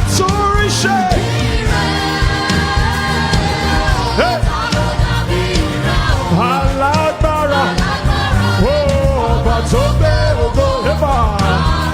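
Live Nigerian gospel praise music: a band with a steady bass line and percussion under continuous sung vocal lines.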